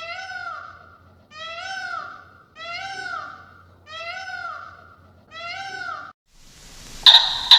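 Domestic cat meowing five times at an even pace, about one meow every 1.3 s, each meow rising then falling in pitch. Near the end, against a noisy background, come two short, loud, sharp calls from another animal.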